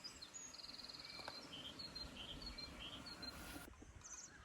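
Faint small-bird calls: a short high trill followed by several brief chirps, over low outdoor background noise.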